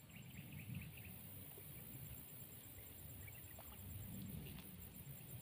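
Faint outdoor ambience: a low rumble of wind on the microphone, with a few faint high chirps in the first second.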